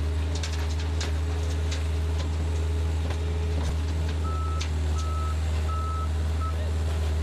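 A heavy construction vehicle's engine running steadily, with a few sharp knocks in the first two seconds. From about four seconds in, its reversing alarm beeps, one high tone about every three-quarters of a second.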